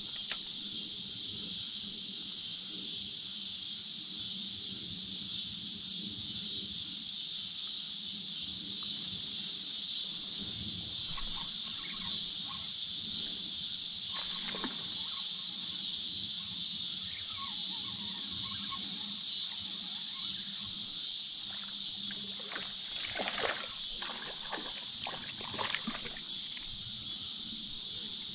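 A steady chorus of insects, an even high-pitched hiss. A few light splashes and sloshes of creek water come in the middle and near the end.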